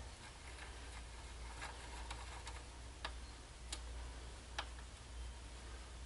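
A ratchet clicking faintly and irregularly, a few separate clicks about half a second to a second apart, as a bolt is tightened down on the engine's cylinder head. A low steady hum lies underneath.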